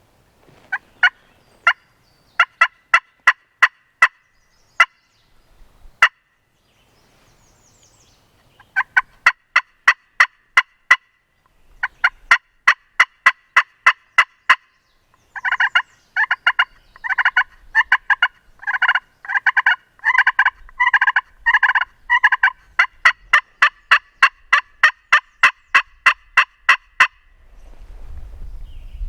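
Hunter's turkey call worked in runs of short, sharp hen yelps, a few notes a second, imitating a hen turkey to draw in a gobbler. The calling is sparse at first and becomes a long, louder, steady run in the second half, then stops a couple of seconds before the end.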